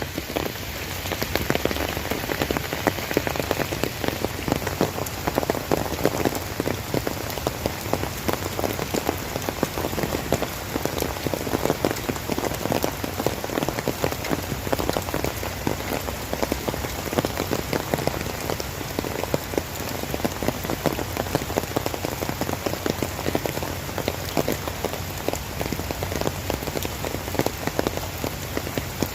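Steady rain falling and pattering on a surface, a dense even wash of countless small drop impacts.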